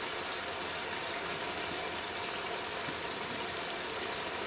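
Prawn curry in a pot on a full gas flame, bubbling and sizzling in a steady hiss as its liquid cooks off.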